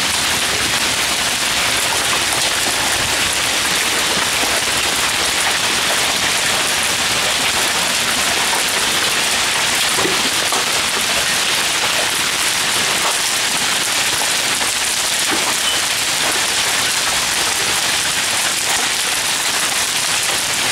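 Hail and heavy rain pelting the ground, paving and plants in a thunderstorm: a dense, steady hiss with faint scattered ticks.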